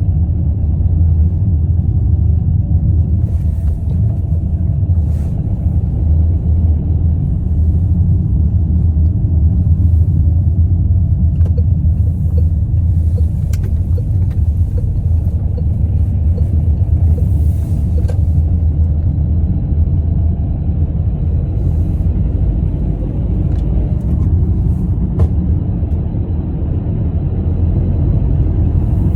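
Car driving along a road: a steady low rumble of tyre and engine noise at an even speed, with a few faint brief hisses and clicks here and there.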